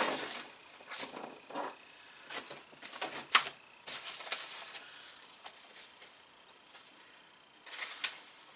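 Paper rustling and crinkling in irregular bursts with a few sharp clicks, as mail and small packaging are handled and opened by hand.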